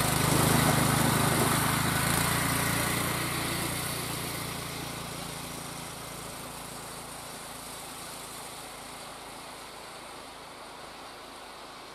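Homemade motorized dog sled's 14-horsepower small gas engine running as the machine pulls away, its steady drone fading gradually into the distance.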